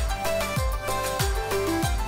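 Background music with a steady beat of deep kick-drum thuds about twice a second under a melody of held notes.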